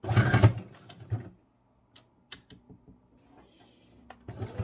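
Brother SQ9130 computerized sewing machine's motor and needle mechanism run in a short loud burst, then stop. A few light clicks and a brief high beep follow, and the machine starts up again near the end.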